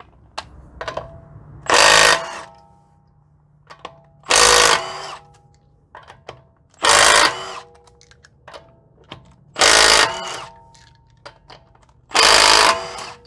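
Cordless Milwaukee M12 FUEL stubby 3/8 in. impact wrench hammering in five short bursts about two and a half seconds apart, one for each lug nut, breaking nuts torqued to 80 ft-lb loose with ease. Light clicks of the socket being moved from nut to nut come between the bursts.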